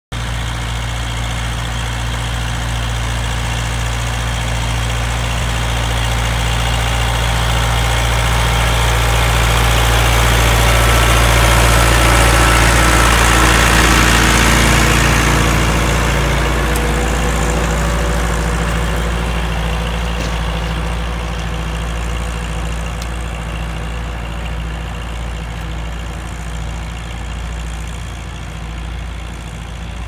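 Massey Ferguson 265 tractor's four-cylinder diesel engine working steadily under load while pulling a three-furrow plough. It grows louder as the tractor comes close, is loudest about halfway through as it passes, then fades as it moves away.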